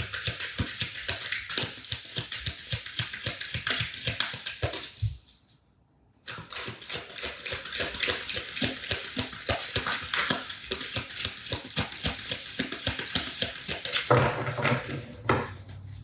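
Tarot cards being shuffled by hand: a dense run of rapid papery clicks and slaps, broken by a brief silence about five seconds in.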